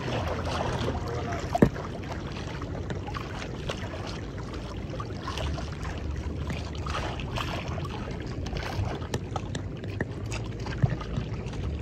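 Water lapping and splashing against the hull of a small wooden outrigger canoe on choppy water, with a steady low rumble of wind on the microphone. A single sharp knock about a second and a half in.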